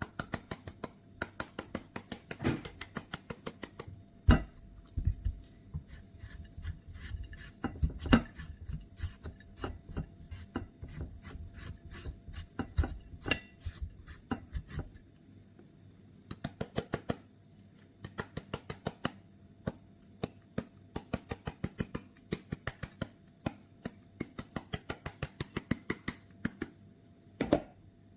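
Kitchen knife hacking rapidly into a papaya, several quick chops a second in runs with short pauses. This is the Thai way of scoring the flesh to shred it for papaya salad.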